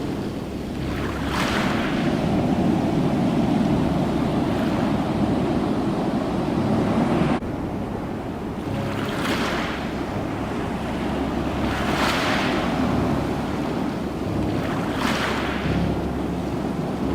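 Ocean surf: a steady low rumble of waves with hissing surges as waves break and wash up, about every three seconds in the second half. About seven seconds in the sound jumps abruptly, like a splice.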